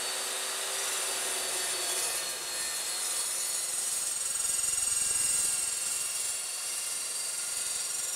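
Evolution S355CPLS 14-inch dry-cut metal chop saw running at full speed with a steady high whine as its carbide-tipped blade cuts through rectangular steel tubing. The cutting noise swells about halfway through.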